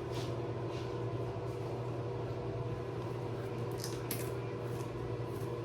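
Faint rustling and a few small clicks as clip-in hair extensions are handled and their clips snapped into place in the hair, over a steady low room hum.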